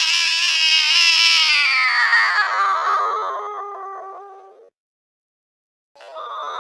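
Angry cat yowl played slowed down: one long drawn-out call that falls in pitch and fades, cutting off abruptly, followed after a second of silence by the start of a second yowl near the end.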